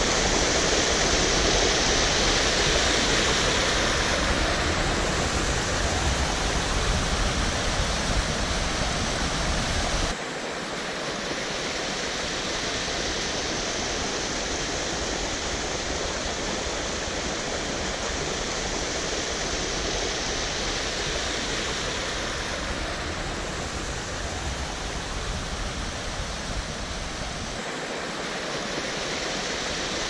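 Steady rush of falling water from a waterfall and its rocky brook. About ten seconds in the sound abruptly turns a little quieter and loses its low rumble, then continues evenly.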